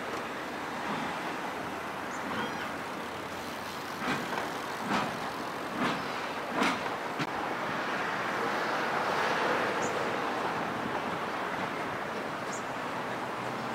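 Steam locomotive RX207 running slowly away along the track: a steady rumble and hiss, with a few sharp knocks about a second apart from about four to seven seconds in.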